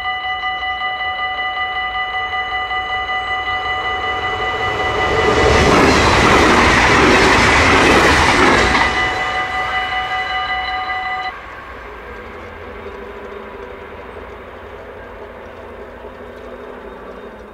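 Dutch level-crossing warning bell ringing steadily while a yellow NS double-deck passenger train rushes past at speed, loudest for a few seconds in the middle. The bell cuts off suddenly a couple of seconds after the train has gone, and the barrier arms then rise with a low mechanical hum.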